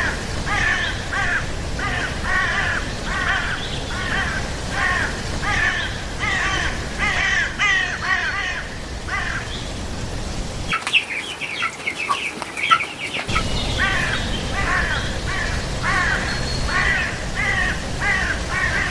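Birds calling over and over, harsh caw-like calls about twice a second, over a steady low rumble. The rumble drops out for a couple of seconds in the middle, where higher, thinner calls come through.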